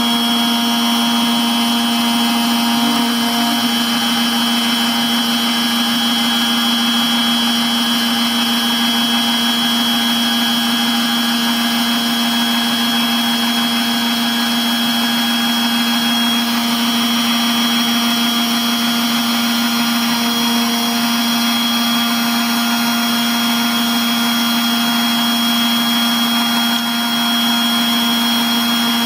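FABtotum Personal Fabricator's milling spindle running steadily with a constant hum and high whine, a 0.1 mm engraving bit cutting isolation traces into a copper-clad PCB at slow feed.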